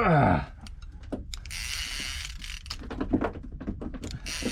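Fishing reel being wound in, its gears and ratchet clicking in spells, bringing back the line after the fish has come off. A brief falling tone sounds right at the start.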